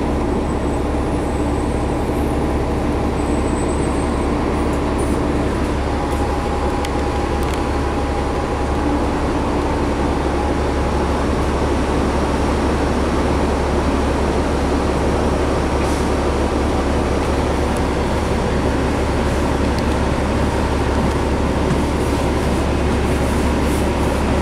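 Cabin noise inside a 2011 New Flyer D60LFR articulated bus on the move: its Cummins ISL inline-six diesel and Allison B500R automatic transmission running, mixed with road and body noise, steady at a constant level.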